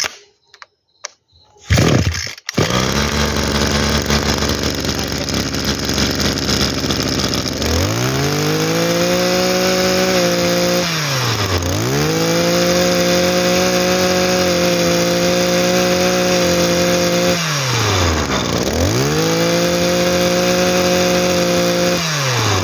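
Shindaiwa two-stroke brush cutter engine starting up about two seconds in and idling, then revved to high speed three times. Each time it holds the high note for several seconds before dropping back to idle.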